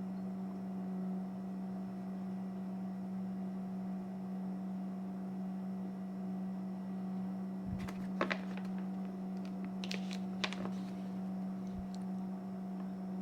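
Steady low electrical hum, with a few short taps and rustles about eight and ten seconds in as the paper instruction sheet is handled.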